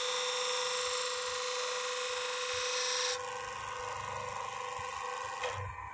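Bench grinder with a felt polishing wheel running with a steady hum and high hiss. The hiss cuts off abruptly about three seconds in, and the machine runs on more quietly.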